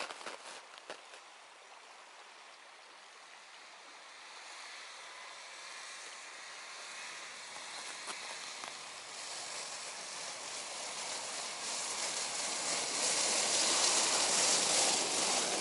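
A Sokol all-terrain vehicle on low-pressure balloon tyres approaching across snow, its engine and tyre noise growing steadily louder as it nears.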